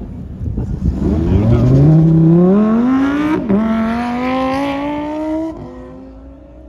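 Lamborghini Huracán's V10 launching from the start line, revs climbing hard through the gear. One upshift about halfway with a sharp crack, then the revs climb again and fall away suddenly near the end as the car lifts off and moves away.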